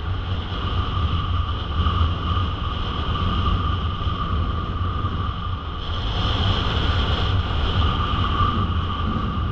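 Wind rushing over the microphone in flight under a soaring paraglider wing: a loud, steady low rumble with a steady high whistle on top, growing a little louder and brighter about six seconds in.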